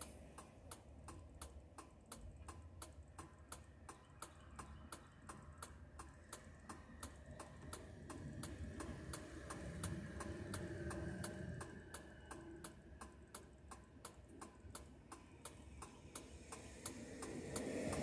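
A vehicle's flasher relay ticking steadily, faint, with evenly spaced clicks a few times a second. Faint traffic hum underneath, with a passing vehicle rising near the end.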